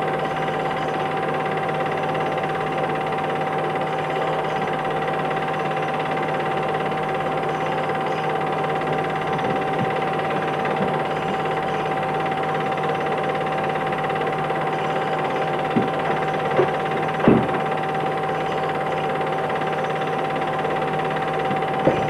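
A steady mechanical hum and hiss with one constant high tone, broken by a few short clicks near the end.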